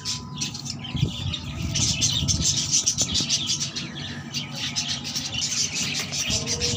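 Many small birds chirping and chattering in rapid, continuous twitters. Underneath is a low, uneven scraping and rustling of sandy soil being dug close by, with a few knocks.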